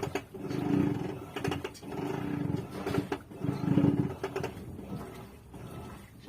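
Electrolux washing machine agitating with an abnormal low growling noise that swells and fades with each back-and-forth stroke of the agitator, about every second and a half, and weakens near the end.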